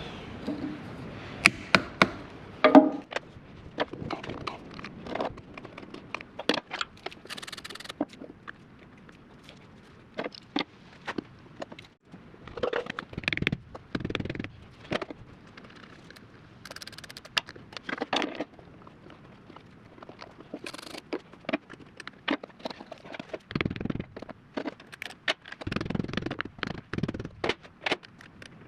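Irregular clicks, knocks and scrapes of hand tools and parts being handled during repair work, coming in scattered bursts with short quieter gaps.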